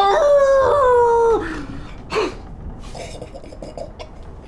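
A man's high, wolf-like howl that wavers and then slides down in pitch, cutting off about a second and a half in, followed by a short falling cry about two seconds in.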